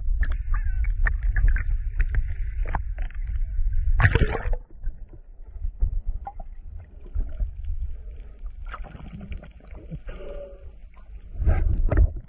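A boat's steady low rumble over sea-water noise, with a short loud burst about four seconds in. The rumble then drops away and swells again near the end.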